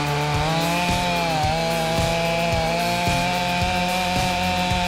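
Chainsaw running under load while cutting into a large tree root, its pitch dipping and recovering as the chain bites. Background music with a steady beat plays underneath.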